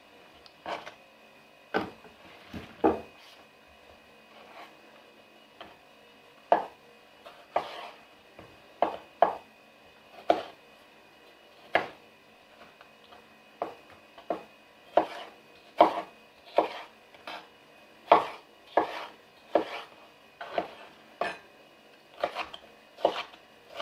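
Chef's knife cutting plum tomatoes on a wooden cutting board: separate knocks of the blade hitting the board, sparse at first, then a steady run of cuts a little more than one a second from about halfway through.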